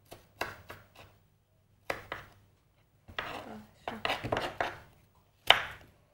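Knife chopping an onion finely on a cutting board: irregular knocks in small clusters, with the sharpest single chop about five and a half seconds in.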